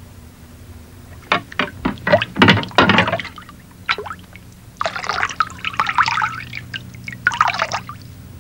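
Liquid pouring into a vessel in irregular spurts and splashes, in several stretches over a steady low hum.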